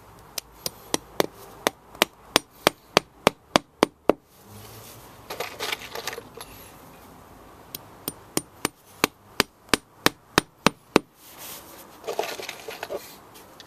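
Hammer driving a nail into the edge of artificial grass: two runs of about a dozen sharp, evenly paced strikes, roughly three a second. After each run comes a brief rustle of fingers picking fixings out of a cardboard box.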